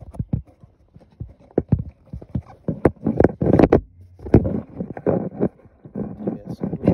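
Irregular knocks and clatter of hands handling the cup and rod holder and its screws in the deck hole, with handling noise on the phone.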